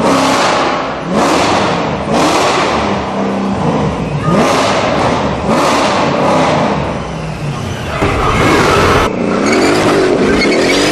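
A high-performance car engine revved hard in repeated bursts, about one blip a second, each rev climbing in pitch and then falling away, with people's voices faintly under it.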